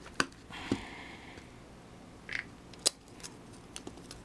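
A few sharp clicks and a brief scraping, about half a second in, as a glued-in iPhone 4 battery is pried up against its adhesive with fingers and a plastic pry tool.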